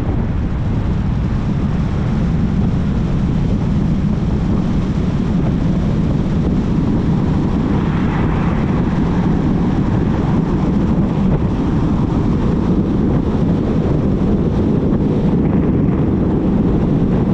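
Steady road and engine noise of a moving vehicle, heard from inside the cabin: a continuous low rumble with no breaks.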